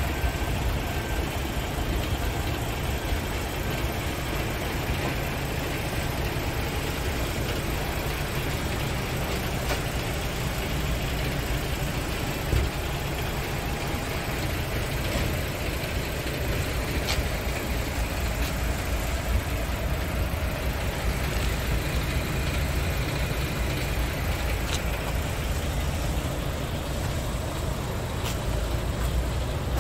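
Scania R520 tractor unit's V8 diesel engine idling steadily, with its energy mostly low in pitch and a few faint clicks over it.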